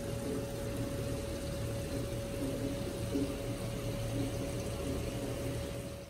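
Steady running water with a pump's hum from a tiled backyard spa, a constant mid-pitched tone sitting over a low rumble.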